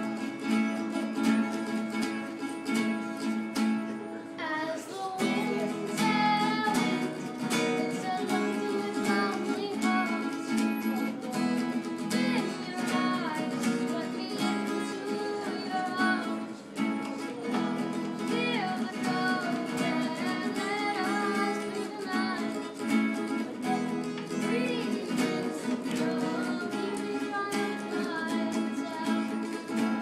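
A boy strumming chords on an acoustic guitar and singing along; the guitar runs steadily and his voice comes in about five seconds in.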